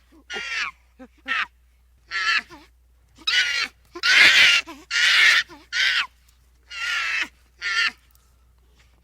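An animal calling over and over: about ten short, harsh calls with gaps between them, the loudest and longest about four seconds in.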